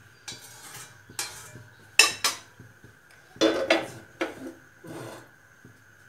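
Steel slotted spoon and a pan clinking and knocking against an aluminium kadai as cooking oil is strained into it. The clanks come irregularly: a sharp pair about two seconds in and a louder clattering run just after halfway.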